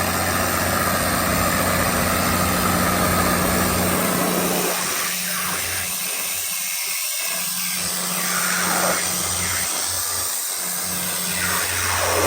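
Cummins KTA19-G4 inline-six diesel engine of a 500 kW generator set running steadily at its governed 1800 rpm, a constant low drone. From about five seconds in, the sound turns patchy and hollow for several seconds before the full drone returns near the end.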